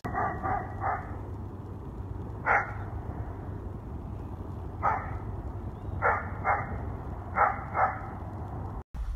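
A Doberman barking about nine times: a quick run of three at the start, then single and paired barks spread over the next seven seconds, over a steady low rumble.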